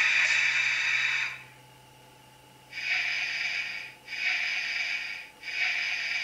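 An H0 model BR 147 electric locomotive's on-board sound decoder playing compressed-air hiss effects through its small speaker while the model stands still. One long hiss fades out about a second and a half in, then three shorter hisses follow one after another, over a faint steady hum.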